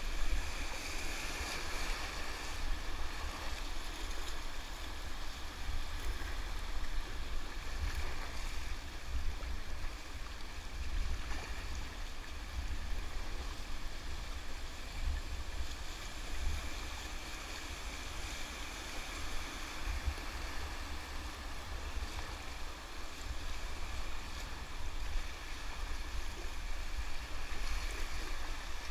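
River whitewater rushing steadily around a kayak, with a low rumble of wind buffeting the microphone.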